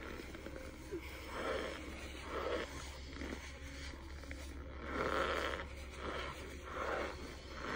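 Close-up chewing of a mouthful of powdery starch chunks: soft munching bursts about once a second, loudest about five seconds in.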